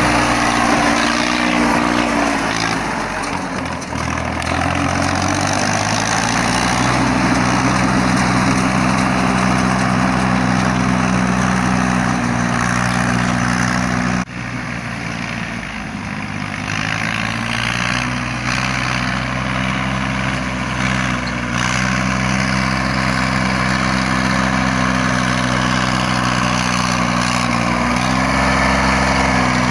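A Yanmar YM3000 tractor's three-cylinder Yanmar 3T84 diesel runs steadily while towing a round baler. The engine note dips and recovers a few seconds in. It turns fainter and more distant about halfway through, then is close and loud again near the end.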